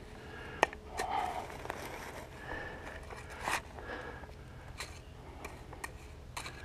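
Steel hand trowel scraping and scooping cold-patch blacktop out of its bag: uneven gravelly scrapes and sharp clicks of the trowel on the stony asphalt mix, with the loudest click under a second in.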